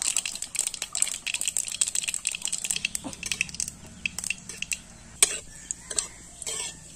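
Mustard seeds spluttering and crackling in hot oil in a metal kadai as a tempering, while a steel spatula stirs and scrapes the pan. The dense crackle thins out after about five seconds, leaving a few sharper knocks of the spatula on the pan near the end.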